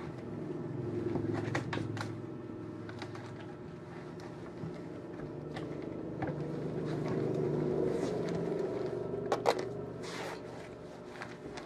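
Cloth wiping across a desktop, a rubbing sound that swells and fades with the strokes, with a few light knocks as a plastic cleaner bottle is moved and set down, the sharpest one about three-quarters of the way through.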